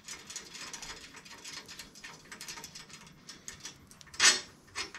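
Fast, light metallic ticking as a small part is worked by hand with pliers at the rear dropout of a 1930s Western Flyer steel bicycle frame, with two louder knocks near the end.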